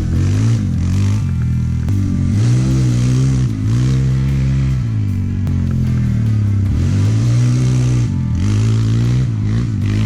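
Four-wheeler (ATV) engine running, its pitch rising and falling again and again as the throttle is blipped and eased off.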